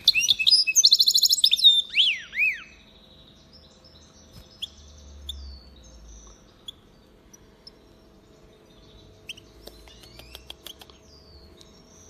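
European goldfinch hybrid singing: a loud run of twittering song with fast trills and looping whistled notes for the first two or three seconds, then only quiet scattered twitters. A few soft clicks come near the end.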